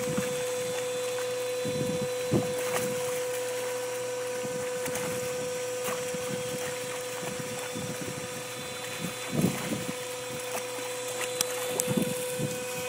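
Pool bubbler jet spraying water steadily over a shallow ledge, with a constant hum running under it, as a dog snaps and splashes at the water. A few short, louder splashes stand out, the biggest about nine and a half seconds in.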